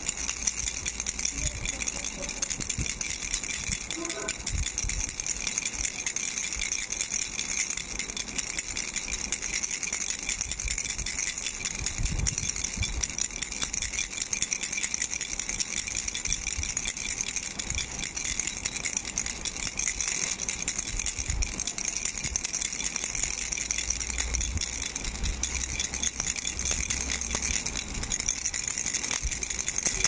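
Starfish-shaped plastic baby rattle shaken continuously, giving a dense, fast, steady rattling.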